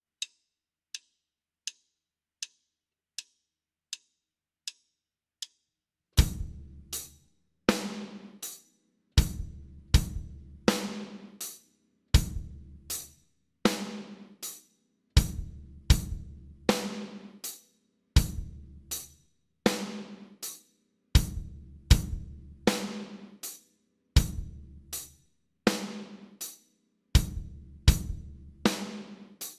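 Drum kit playing a slow reading exercise in quarter and eighth notes at 40 bpm. It opens with eight light clicks counting in, then settles into kick drum, snare and cymbal strokes in a steady pulse, about one every three-quarters of a second.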